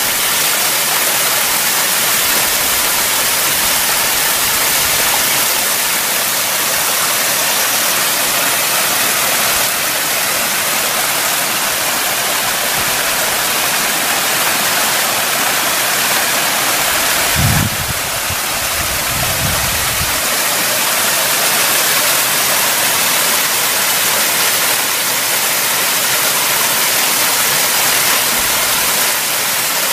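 Mountain stream rushing over rocks, a loud steady hiss of running water from a small cascade and rapids. A brief low rumble a little past halfway through.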